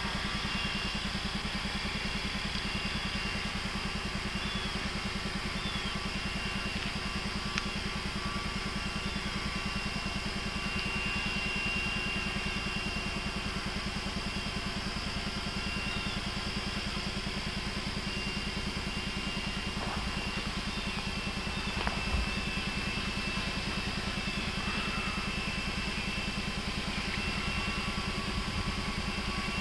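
Steady diesel engine rumble of CP Rail MLW locomotives working a freight train slowly out of a tunnel.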